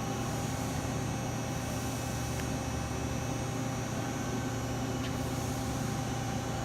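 Mazak 18MS CNC lathe powered up and running, giving a steady low machine hum with a faint hiss and a couple of faint ticks.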